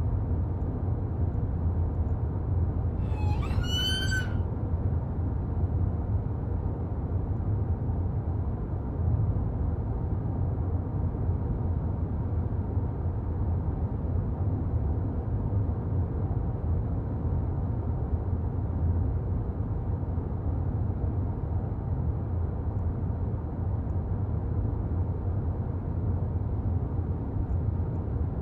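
Car driving, a steady low rumble of engine and road noise. About three seconds in, a brief high chirp rises and falls.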